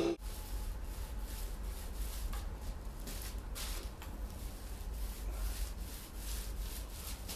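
Irregular rubbing and scraping noise, like something being handled or rubbed against a surface, over a low steady hum.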